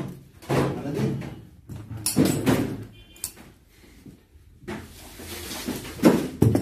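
A small blade scraping the enamel insulation off the copper magnet-wire leads of a rewound electric motor stator, in several separate short scrapes with hand and wire handling noise. The enamel is scraped off so the solder will take on the bare copper.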